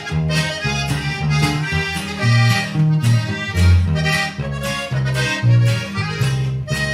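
Norteño band playing live: accordion melody over a bass line that steps from note to note and a steady drum beat.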